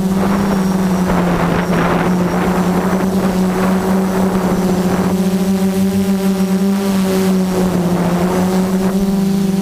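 F330 quadcopter's brushless motors and propellers giving a steady, even-pitched whine, with rushing air noise swelling and fading as it flies.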